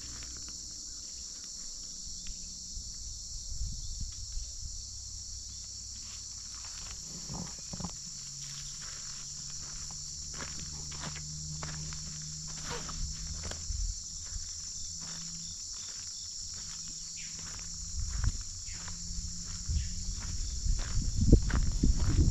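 A steady, high-pitched chorus of insects such as crickets, with irregular footsteps on a gravel path. A louder low rumble comes near the end.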